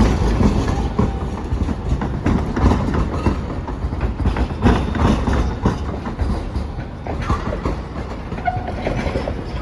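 A Hiroshima Electric Railway streetcar running past, a low rumble with its wheels knocking and clacking over the rail joints and junction points. A short tone sounds near the end.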